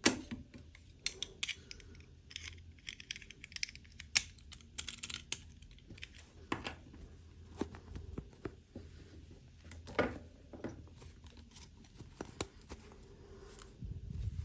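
Irregular light clicks, taps and short rustles of small plastic toy pieces and packaging being handled and unwrapped.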